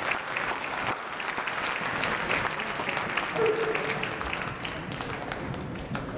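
Audience applauding, dense clapping that slowly fades toward the end.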